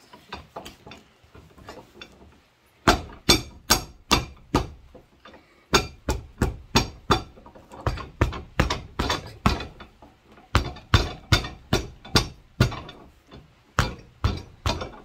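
A mallet striking a rubber sole lift glued onto a shoe, tapping it down to set the glue bond. Runs of sharp knocks, about two or three a second, begin about three seconds in and pause briefly now and then.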